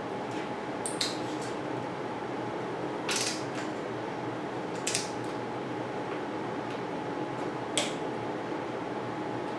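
Four light metallic clinks of hand tools and steel bolts being handled while the stem faceplate bolts are snugged down, spaced a couple of seconds apart over a steady background hum.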